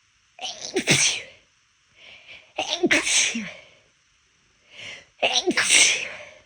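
A woman sneezing three times in a row, about two and a half seconds apart: failed attempts to hold the sneezes back. Each of the last two is led in by a short, softer catch of breath.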